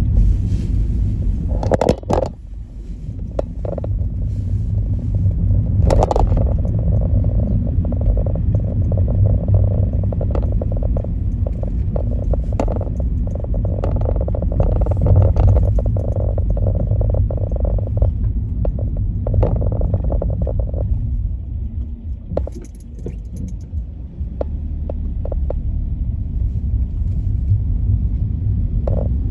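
Road noise heard from inside a moving car in town traffic: a steady low rumble of engine and tyres, with scattered small knocks and rattles. It eases off briefly about three-quarters of the way through.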